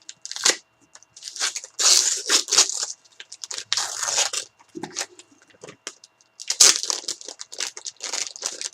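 Packaging being torn open and crinkled by hand, in a string of irregular ripping and rustling bursts with short pauses between them.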